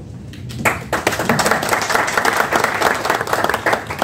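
Audience applauding. The clapping starts about half a second in and stops near the end.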